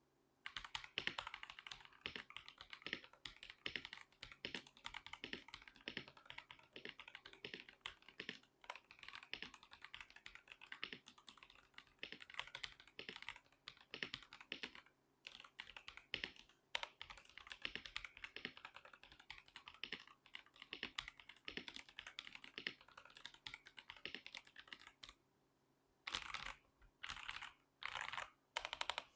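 Noir Timeless82 mechanical keyboard being typed on quickly: a dense, continuous run of keystroke clicks. Near the end there is a brief pause, followed by a few short separate clusters of keystrokes.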